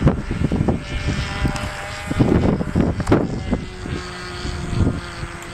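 Radio-controlled model airplane motor running with a steady whine, over uneven low rumbling.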